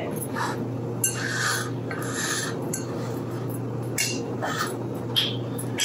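Metal spoon scraping lemon curd out of a small glass jar: about five short scrapes, a second or so apart.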